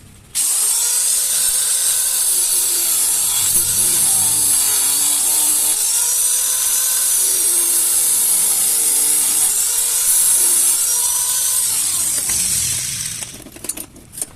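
Compressed gas blown through refrigerator tubing while it is flushed, making a loud hiss with faint whistling tones that waver up and down in pitch. It starts abruptly about half a second in and tails off near the end.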